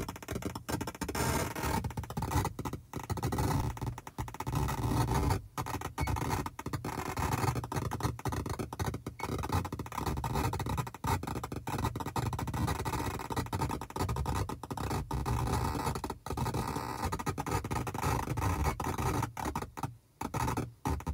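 Loud crackling, buzzing interference noise, irregular and cutting out briefly many times.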